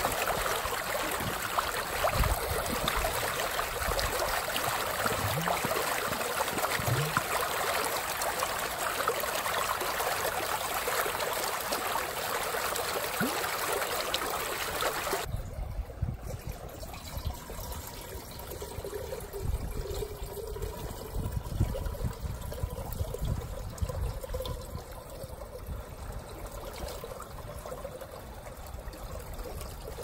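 Fast stream water rushing around a terracotta jug held in the current to fill. About halfway through it cuts to a quieter trickle of water poured from the jug into the top of a samovar, with the stream faint behind it.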